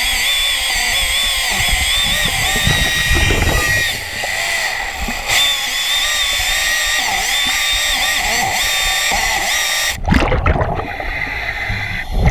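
Hydraulic chainsaw cutting through an old wooden piling underwater, its chain dulled by gravel and cutting slowly. The steady saw noise cuts off suddenly about ten seconds in, leaving bubbling and low rumbling.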